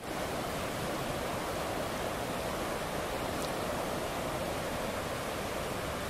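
Rushing river water over rapids: a steady, even noise.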